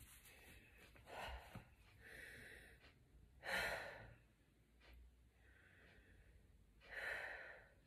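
A woman breathing heavily to catch her breath after carrying a heavy box: about five slow, audible breaths a second or two apart, the strongest in the middle and near the end.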